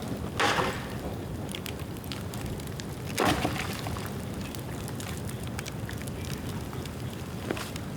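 Bonfire of wet bamboo burning with a steady low rush and scattered crackling, with two louder sharp bursts, about half a second in and just after three seconds.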